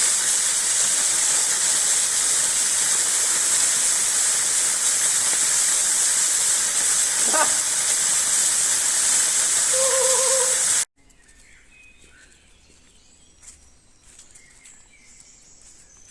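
Loud steady rushing hiss, strongest in the high range, with a couple of brief chirps, that cuts off abruptly about eleven seconds in. Then comes a quiet woodland stretch with faint bird chirps and small ticks.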